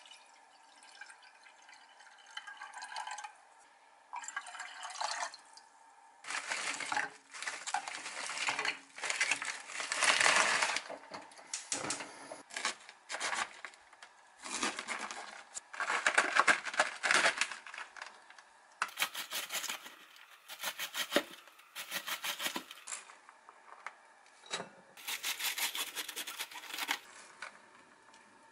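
Kitchen prep sounds: water from washed rice poured into a small pot, then water splashing. After that, a kitchen knife cuts into a head of cabbage and shreds it on a cutting board, in two runs of rapid, sharp strokes in the second half.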